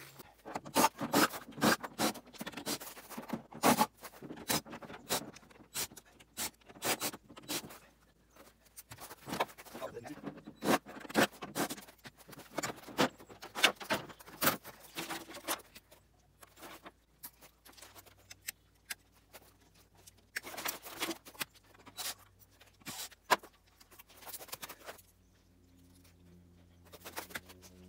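Irregular clattering knocks and scrapes of a CRT television being taken apart by hand: the plastic back casing handled, wires pulled and the copper deflection yoke worked loose from the picture tube's neck.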